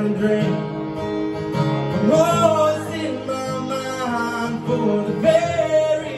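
A man singing to his own acoustic guitar, live through a microphone, in a slow country-style song.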